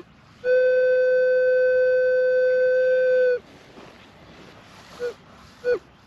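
Metal detector sounding a steady target tone for about three seconds, then two short chirps as the coil passes over buried metal.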